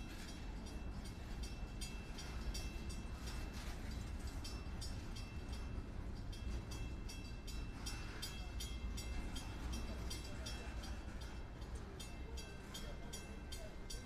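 Freight train of coil cars and boxcars rolling past close by: a steady low rumble of steel wheels on the rails, with a rapid, regular high ticking throughout.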